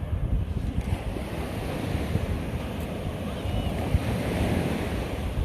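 Ocean surf washing up on the shore, a hissing wash that swells after about a second and eases near the end, with wind buffeting the microphone as a steady low rumble.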